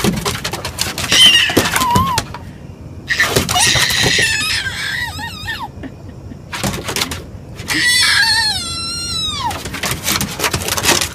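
A toddler shrieking with laughter: several high-pitched squeals, the longest near the end sliding down in pitch. Light knocks between them.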